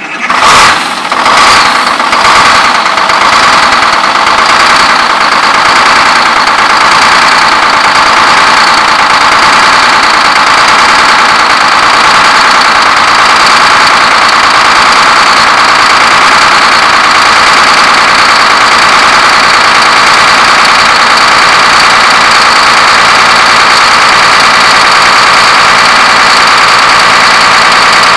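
Starboard main diesel engine of a Gulfstar 49 motor yacht firing up in its engine room. It surges unevenly for about two seconds after catching, then settles into a loud, steady idle.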